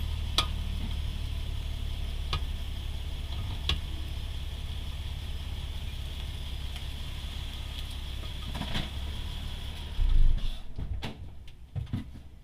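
Car running with a steady low rumble and a few sharp knocks, then a loud thump about ten seconds in, after which the rumble stops. The car is a 2008 Honda Accord V6 whose owner reports clunking from the rear brakes.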